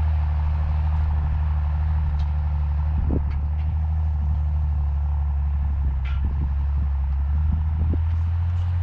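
An engine running steadily at a constant speed, a low even hum with no change in pitch.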